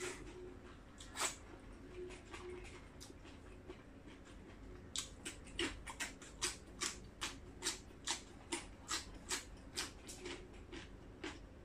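A person chewing a mouthful of raw greens, with a quick regular run of crisp crunches and mouth clicks, about three a second, starting about five seconds in.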